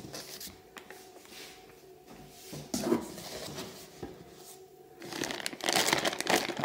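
Plastic wrapping crinkling and rustling as plastic-wrapped coilover shocks are handled in a cardboard box. The crinkling starts about five seconds in, after a few faint clicks and knocks.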